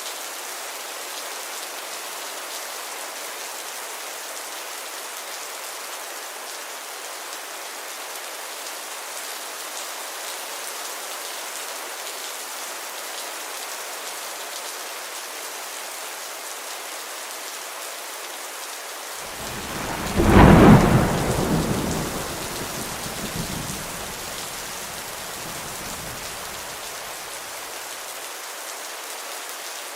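Heavy rain falling steadily. About twenty seconds in, a loud clap of thunder breaks and then rumbles away over several seconds.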